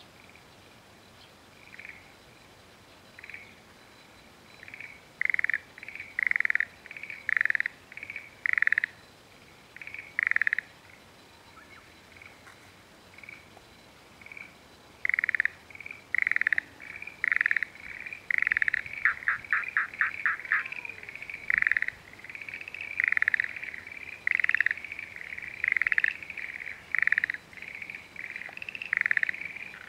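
Frogs croaking in repeated bouts of short, high, evenly spaced calls, sparse at first and nearly continuous in the second half. About two-thirds of the way through comes a quick rattling run of rapid pulses.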